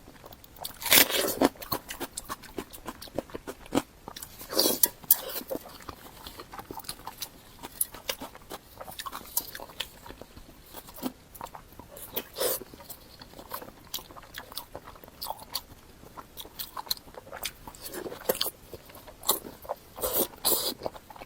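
Close-miked eating sounds: a person biting and chewing with wet mouth clicks throughout, and several louder bites or mouthfuls about a second in, near five seconds, around twelve seconds and near the end.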